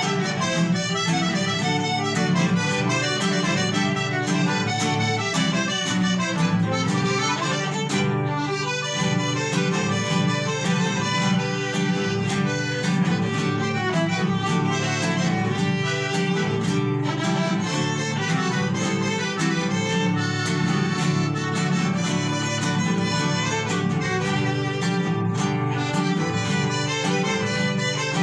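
A conservatory ensemble playing instrumental music without a break, violins leading over plucked-string accompaniment.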